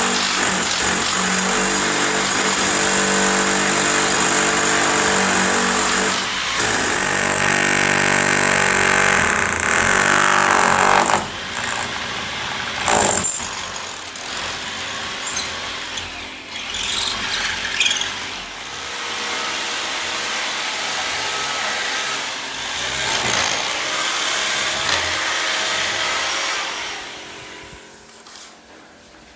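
A power tool's electric motor runs steadily for about eleven seconds, then keeps going more unevenly and a little quieter before fading out near the end.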